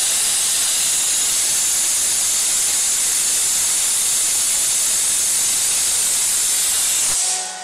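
Steady loud hiss of a high-pressure fluid spray inside a CNC machining enclosure, jet and coolant mist blasting onto a steel block; it stops abruptly near the end, leaving a faint machine hum.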